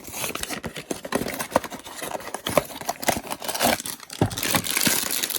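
A blind-box figure's packaging being handled and torn open: a run of rustling, crinkling and tearing with small sharp clicks.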